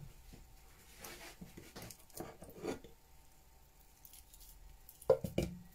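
Faint handling noises, then a couple of thuds about five seconds in as chunks of peeled banana are tipped from a plate into a plastic mixing bowl.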